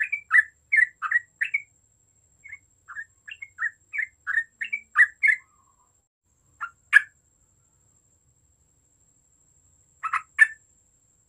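Yellow-vented bulbul (trucuk) singing: two runs of quick chattering notes, about three or four a second, then a few single sharp notes with long pauses between them.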